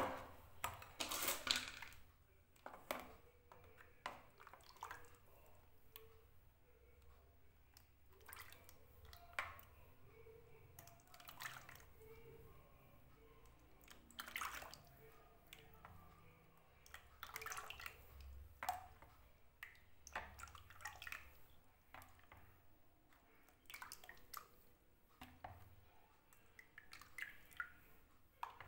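Lemon juice concentrate ladled into a plastic storage box: faint, repeated pours and splashes of liquid with the occasional clink of the metal ladle, and a sharp knock at the very start.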